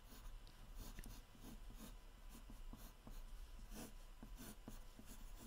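Pencil scratching on paper in many short, irregular sketching strokes, faint.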